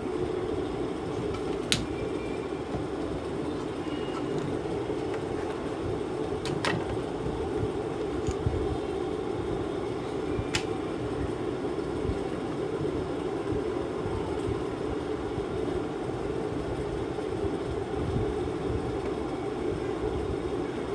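Steady low mechanical hum, like a fan or air-conditioner running, with three sharp clicks about 2, 7 and 11 seconds in as parts of a disassembled air-cooler water pump are handled.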